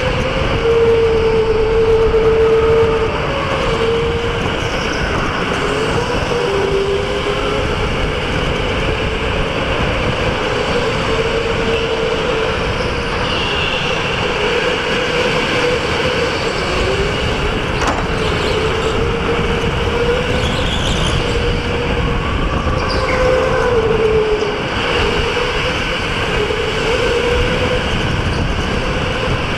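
Electric go-kart running laps on an indoor track, heard from a camera on the kart. The motor whine rises and falls with speed over a steady rumble of tyres and chassis vibration.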